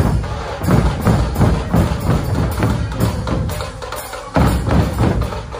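A Maharashtrian dhol band playing: large two-headed barrel drums (dhol) struck with sticks in a steady, driving rhythm of about three heavy strokes a second. The drumming eases briefly and comes back loud about four and a half seconds in.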